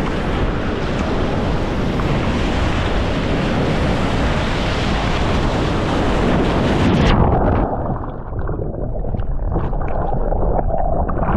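Breaking surf rushing loudly over a sea kayak, with wind on the microphone. About seven seconds in, the sound suddenly turns muffled and dull as the kayak capsizes and the camera goes underwater, leaving churning water with small bubbling ticks.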